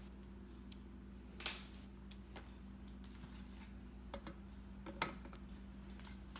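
A handful of faint clicks and light scrapes from a tripod quick-release plate being screwed onto a telephoto lens's tripod foot and from the lens being handled. The most distinct click comes about a second and a half in, over a steady low hum.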